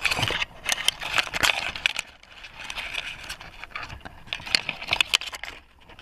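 Leaves and small twigs rustling and scraping close against the microphone in irregular crackles and clicks, easing off around the middle and stopping shortly before the end.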